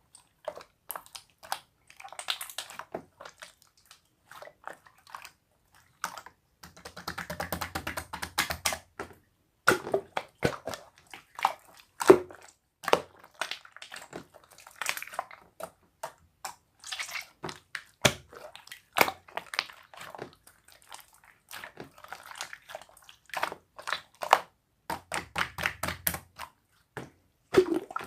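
Close-miked eating: crisp clicks, snaps and crunching from chewing and biting, with a couple of denser crackling stretches, about seven seconds in and again near the end.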